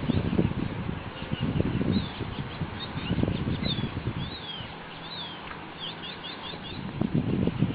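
Birds chirping: quick runs of short, high chirps over a low, rumbling background noise that eases off in the middle.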